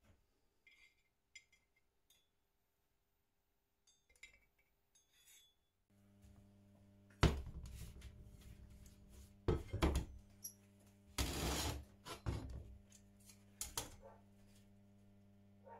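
Metal pieces clanking and clinking several times over a steady electrical hum that switches on about six seconds in; one clatter lasts close to a second.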